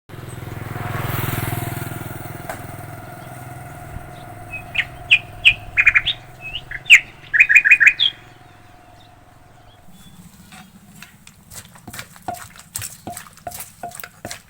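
A bird chirping in quick runs of short, high calls. A vehicle passes in the first couple of seconds, and a fast run of light knocks follows near the end.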